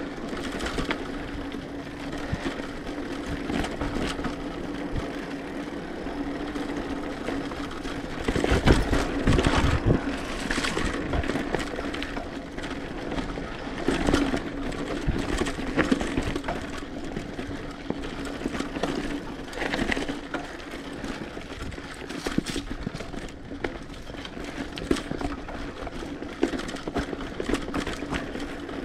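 Mountain bike ridden over a rough dirt trail: a steady hum with continual rattling and knocking as the bike goes over bumps, with the heaviest jolts about nine seconds in and again around fourteen seconds.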